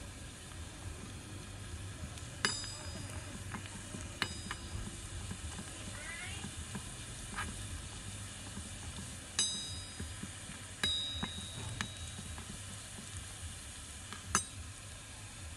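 Oil sizzling steadily with chopped garlic in a miniature iron wok, while a small metal spatula stirs it and clinks sharply against the wok about five times, each clink ringing briefly.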